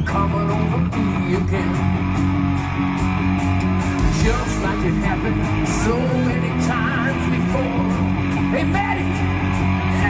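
Song with guitar, a steady drum beat and singing.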